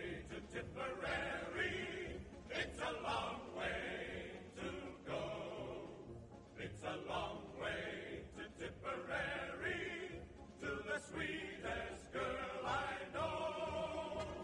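Background music with choir-like singing.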